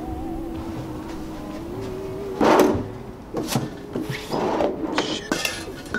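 A wooden drawer pulled open with a short sliding scrape about two and a half seconds in, followed by several knocks and clicks as things inside it are handled.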